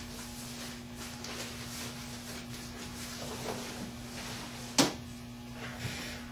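Packing material rustling and shifting as a guitar is unpacked from its shipping box, with one sharp knock a little before five seconds in and a softer one about a second later, over a steady low electrical hum.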